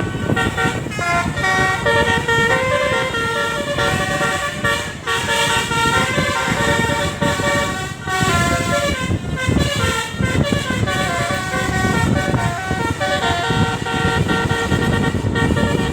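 Bus 'telolet' musical air horns playing a continuous run of melodic notes that step up and down in pitch, over a steady low rumble.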